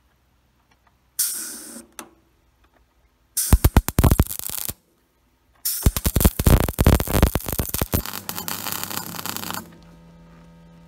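Wire-feed welder arc crackling and sputtering on steel in three welds: a short one about a second in, another of about a second near four seconds, and a longer one of about four seconds. After the last weld a low steady hum carries on.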